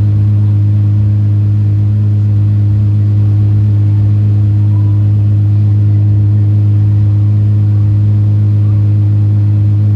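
Car engine idling steadily: a low, even drone that holds the same pitch throughout, with no revving.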